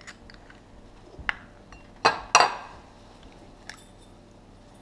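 Egg rapped on the rim of a ceramic bowl to crack it: two sharp knocks about a third of a second apart near the middle. There are lighter clicks of shell against the bowl before and after.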